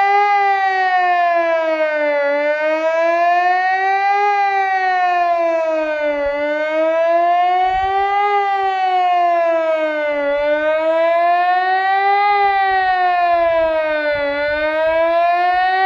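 Ergatec APEX-6 electronic civil defence siren, with six loudspeakers, sounding the Swiss general alarm signal in its annual test. The tone rises and falls in a slow, even wail, about two seconds up and two seconds down, over and over.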